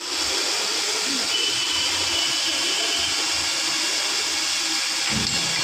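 Circular saw machine running and cutting, a steady hissing noise without a break.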